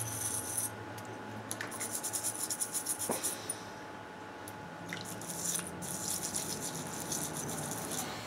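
Plastic brush scrubbing a nitro engine's finned parts in soapy water, a quick rasping scrub in two spells, about two seconds in and again from about five seconds. Under it runs the steady hum of the ultrasonic cleaner.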